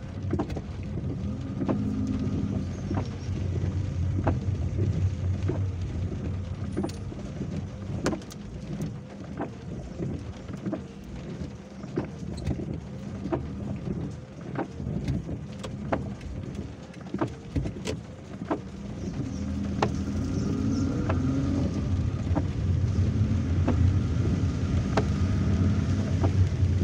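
Inside a car driving slowly in the rain: a steady low engine hum, with scattered sharp ticks of rain on the car and the windscreen wipers sweeping. The sound grows louder with a rising engine note about two-thirds of the way through.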